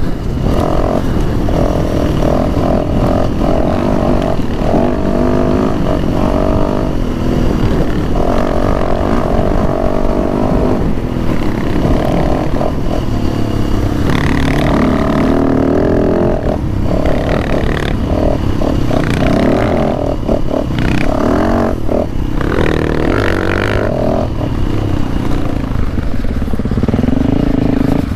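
Dirt bike engine running hard along a rough trail, its pitch rising and falling again and again with throttle and gear changes.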